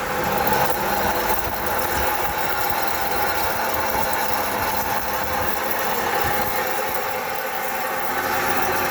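Worn wheel bearing on a Toyota Sienna droning and grinding steadily as the wheel turns. The bearing is dry and running metal on metal, with no grease left.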